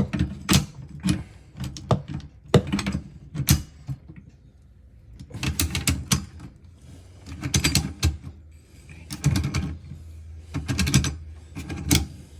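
Metal hand tools clicking and clattering in repeated bursts while working on a plumbing compression fitting, with a quieter pause about four seconds in.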